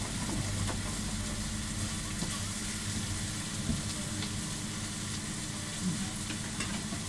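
Chicken pieces sizzling steadily on a hot flat-top griddle, with a few light clicks, over a steady low hum.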